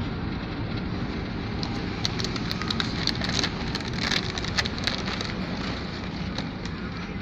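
Steady engine and road noise heard from inside a moving vehicle, with a run of sharp crackles and ticks in the middle that ends well before the close.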